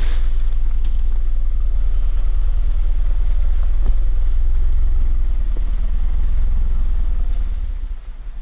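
Opel Frontera Sport's engine pulling under load as the 4x4 climbs a steep leaf-covered slope, a steady deep rumble that fades near the end as it moves off up the track.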